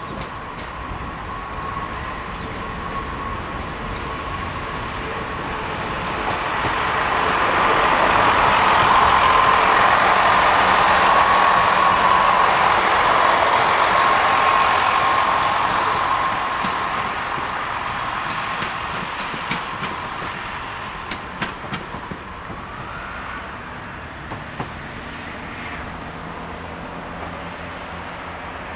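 Class 165/166 Network Turbo diesel multiple unit passing close by: the engine and wheel noise, with a steady whine, builds to a peak as the unit goes past and then fades away, with a few clicks from the wheels near the end.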